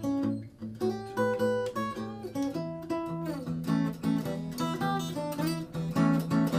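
Naga cutaway acoustic guitar fingerpicked: a line of single picked notes over ringing bass notes.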